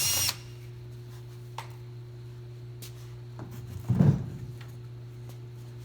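A power driver whines briefly and stops just after the start, then a steady low hum remains under a few light clicks and a clunk about four seconds in, as the removed panel and fittings are handled.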